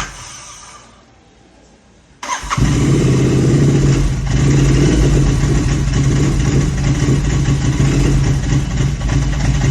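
Royal Enfield GT 650's 648 cc parallel-twin engine dying out at idle, a symptom of its idling and misfire problem. It is restarted about two seconds later, catches at once and runs steadily.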